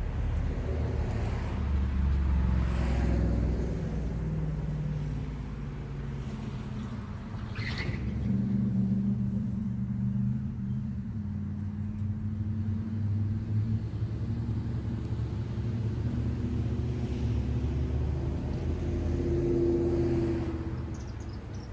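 Low rumble of a large engine running steadily, its pitch drifting slowly up and down, with a single light click about eight seconds in.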